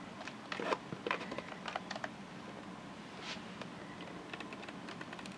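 Light, scattered clicks and taps of hard plastic on plastic as an epinephrine auto-injector is handled and set against a plastic container. Most come in the first two seconds, with one more about three seconds in.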